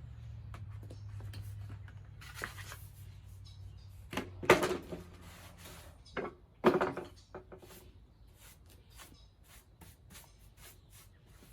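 Scattered clicks and knocks of hard objects being handled, with two louder clatters near the middle, over a low hum that fades out about four seconds in.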